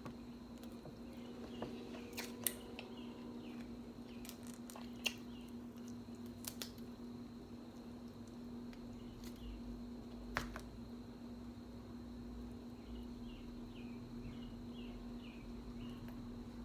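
Distant train, a faint steady low drone with a deeper rumble swelling about halfway through. A few sharp clicks and faint high chirps sound over it.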